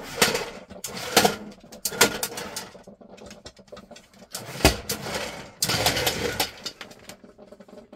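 Dog nudging and knocking a plastic treat-dispenser toy across a vinyl floor: irregular clatters and scrapes, with the sharpest knock a little before halfway.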